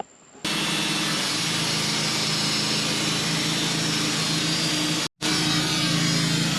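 Portable sawmill running, its engine humming steadily as the carbide blade cuts through a hemlock log. The sound starts suddenly about half a second in and drops out for an instant about five seconds in.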